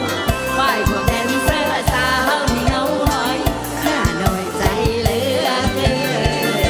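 Live Isan mor lam band music with a steady fast drum beat, about four strokes a second, and singing over it.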